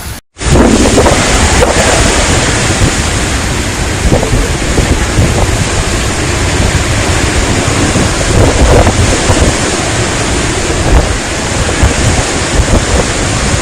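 Strong storm wind blowing hard across the microphone: a loud, steady rush with low buffeting rumble. It begins abruptly after a brief dropout just after the start.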